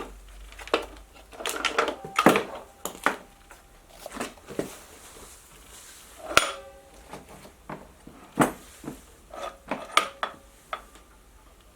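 Irregular metallic clanks and knocks, a dozen or so, some ringing briefly, as the metal parts of a portable bandsaw are handled and moved.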